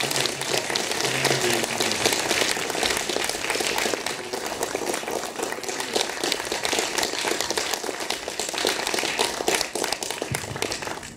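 Audience applauding, many hands clapping densely together, easing slightly toward the end.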